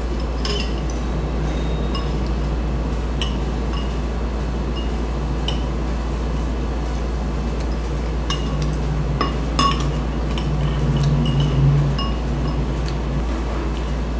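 Metal spoon and fork clinking and scraping against a bowl during eating, several light clinks spread through, over a steady low hum.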